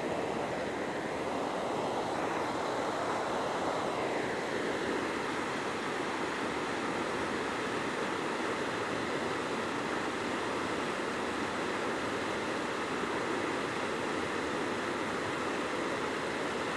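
Rocky river rushing over boulders in rapids: a steady, even roar of running water.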